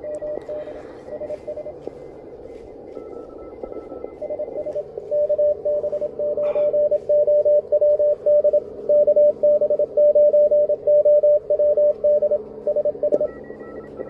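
Morse code (CW) received on small QRP transceivers, an Elecraft KH1 and a CFT1, played through a small portable speaker. A strong station keys a tone of about 600 Hz, loudest from about five seconds in. Fainter stations sound at higher pitches over a steady hiss of band noise, so several signals are heard at once on a busy band.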